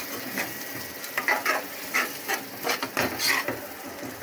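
A metal spoon stirring thick frying masala in an aluminium pressure cooker, with irregular scrapes against the pot over a light sizzle.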